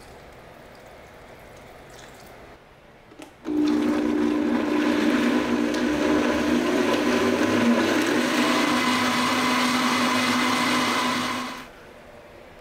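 Countertop blender switched on about three and a half seconds in, running loud and steady at high speed for about eight seconds, then winding down and stopping near the end. A couple of light clicks come just before it starts.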